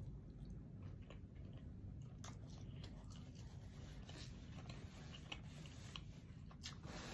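Faint eating sounds: chewing, with a few soft clicks as fingers pick at a boiled shrimp.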